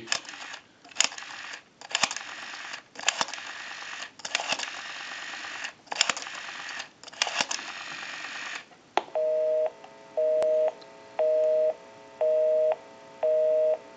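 A Western Electric rotary Trimline telephone being dialed: the rotary dial pulled round and running back several times, with dialing noise coming in spurts. About nine seconds in, a busy signal begins, a low two-tone beep sounding about once a second, six times.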